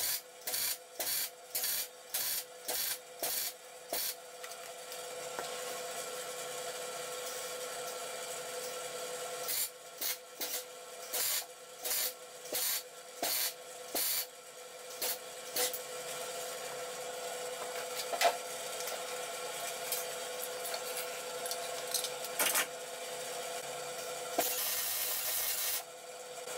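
MIG welding on a steel box-section frame. The arc crackles in short bursts about two a second, then in longer unbroken runs, and the stop-start pattern comes back once more.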